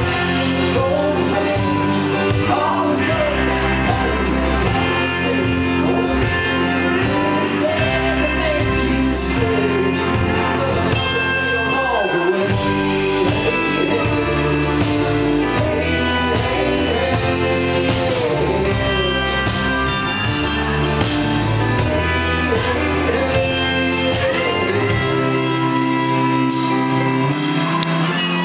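Live band music: a man singing over strummed acoustic guitar, bass and keyboard. Near the end the low bass notes drop away.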